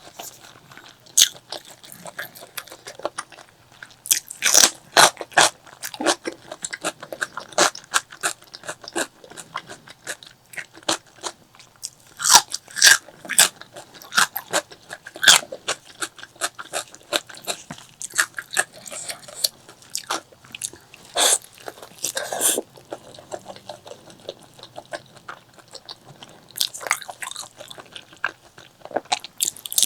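Close-miked eating sounds: a person chewing and biting food in an irregular run of crunchy, crackly clicks, with louder clusters of bites now and then.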